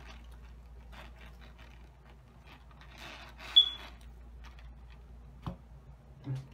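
Soft scraping and tearing as ripe jackfruit bulbs are pulled out of the fruit by hand, over a low steady hum. A brief sharp squeak about three and a half seconds in is the loudest sound, and two light knocks come near the end.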